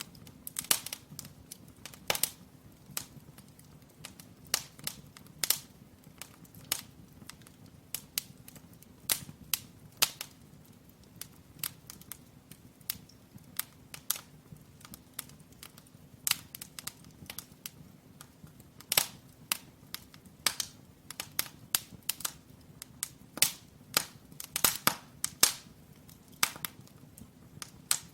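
Firewood burning in an open brick fireplace, crackling and popping in sharp irregular snaps, some single and some in quick clusters, over a faint low hum.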